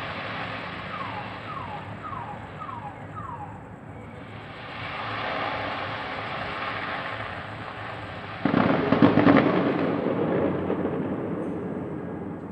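Fireworks: about eight and a half seconds in, a sudden loud burst breaks into dense crackling that fades over the next few seconds. Earlier there are five short falling whistles and a rise and fall of noise, over a steady background rumble.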